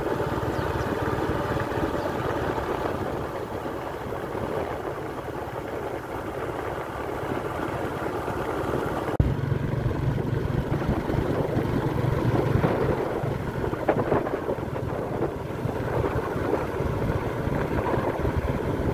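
A vehicle engine running steadily, with wind noise on the microphone, while travelling along the road. About nine seconds in the sound changes abruptly, and a steadier low hum follows.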